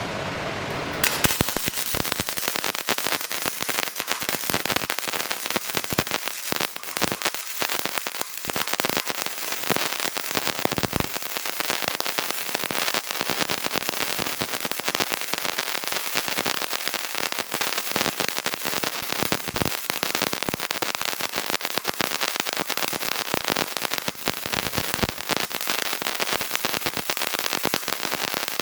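Gasless flux-core MIG welding arc from a FLARING FM175 welder: a steady, dense crackle that starts about a second in.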